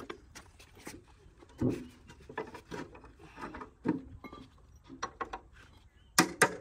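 Scattered knocks and clinks of metal fasteners and hand tools against column formwork panels, then a quick run of sharp, ringing metal-on-metal strikes near the end.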